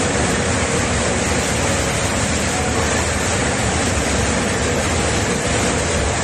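Diamond segmented stubbing wheel grinding a stone slab: a loud, steady grinding noise that does not change.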